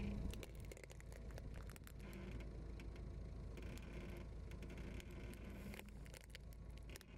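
Off-road car tyre rolling slowly onto spiky rubber puffer-ball toys on asphalt, pressing them flat: faint scattered crackles and scraping over a low steady rumble.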